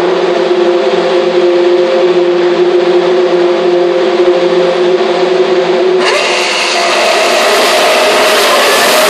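A grid of Auto GP single-seater race cars holding their engines at high revs, giving one steady combined engine note. About six seconds in the pitch climbs and the sound turns brighter and a little louder as the revs rise.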